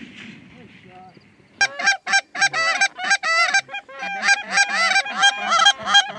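A Canada goose call blown by a hunter in a fast run of honks and clucks, several notes a second with sharp breaks in pitch, starting about a second and a half in and going on past the end.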